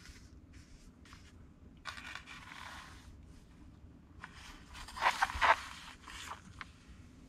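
A paper instruction booklet being handled and slid across a table: rustling and scraping paper, once about two seconds in and again, louder, about five seconds in.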